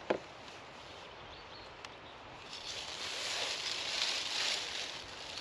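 A plastic bag rustling as a hand scoops bait out of it into a bait boat's hopper, loudest about three to four seconds in. A single sharp click comes just at the start.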